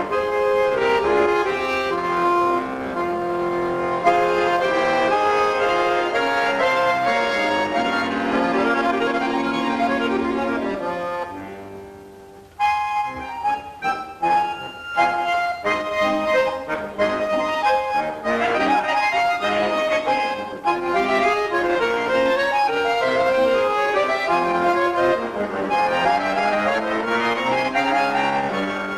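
Bayan (chromatic button accordion) playing solo. Sustained chords with a moving melody fade to a brief pause about twelve seconds in. The playing then resumes abruptly with quick separate notes before flowing into chords again.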